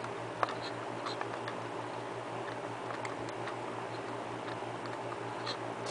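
Light, uneven clicks and ticks from a small plastic quartz alarm clock being handled, as its time-setting knob is turned to run the hands toward the alarm time.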